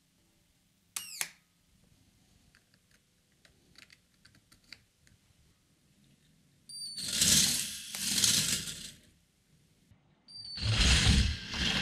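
A K'nex roller coaster train launched by a homemade linear synchronous motor. A short high whine from the powered coils comes first, then the plastic train rattles along the track in two loud bursts about a second apart. A second whine and launch follow near the end, after a few light clicks of handling earlier on.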